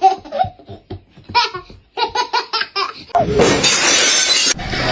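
A person laughing in short quick runs, then about three seconds in a sudden loud, harsh noise that lasts to the end.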